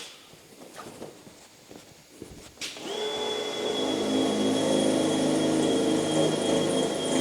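Electric drill boring holes for rivets. It stops, there is a pause with a few light clicks, then about three seconds in it starts again and runs at a steady whine.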